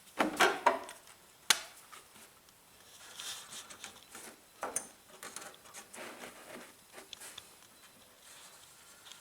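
Quiet handling noises: scattered knocks, clicks and rustles, with one sharp click about one and a half seconds in.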